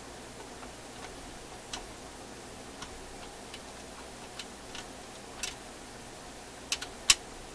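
Small metal hook tools clicking and tapping against the steel linkage of a record changer mechanism while a spring is worked into place. The clicks are light and scattered, with three sharper ones close together near the end.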